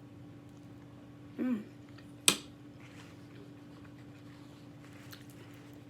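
A person eating pasta: a brief hummed "mm" about a second and a half in, then one sharp click a moment later, with a few faint clicks near the end, over a steady low hum.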